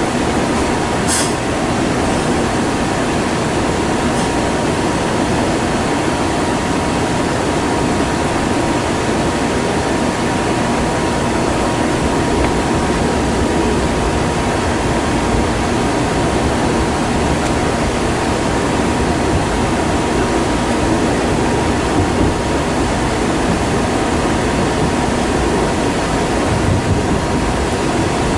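Kintetsu 20000 series 'Raku' electric train running: a steady rumble of wheels on the rails and running gear with no change in pace, and one brief click about a second in.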